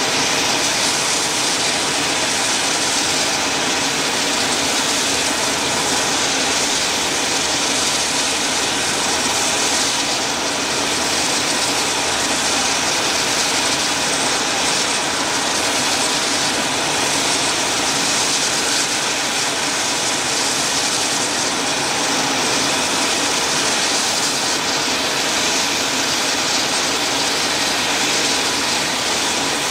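AH-64D Apache attack helicopters running on the ground, their twin turboshaft engines and rotors making a loud, steady noise.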